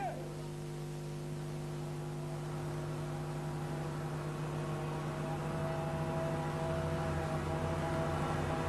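A low droning hum of several held tones, slowly getting louder, with a higher held tone joining about halfway through: a sustained music drone fading in.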